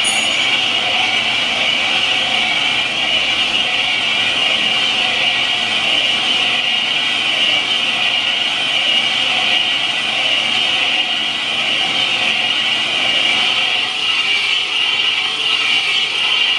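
Cylinder boring machine running steadily, its cutter reboring a steam locomotive cylinder worn out of round by the piston, a continuous high-pitched machining hiss with no break.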